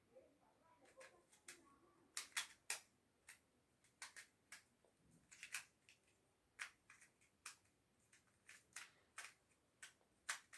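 Plastic twisty puzzle cube being turned by hand: irregular sharp clicks and snaps of the layers, some twenty in all, loudest in a quick cluster about two seconds in.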